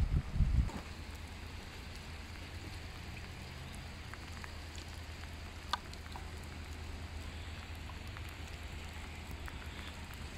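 Steady rain falling, with scattered faint drop ticks and one sharp tick about six seconds in, over a low steady rumble. Wind buffets the microphone for the first second.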